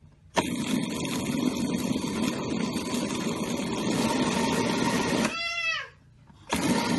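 Electric countertop blender pulsed on, blending frozen strawberries, milk and ice cream for about five seconds. It is switched off, and its motor whine falls in pitch as it spins down, then it is switched on again near the end.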